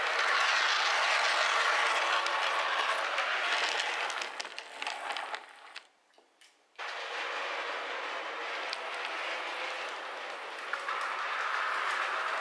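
O scale model trams running on the layout's track: a steady whir of motors and wheels, with a few clicks. It fades away about halfway through into a brief near-silence, then starts again abruptly and runs on.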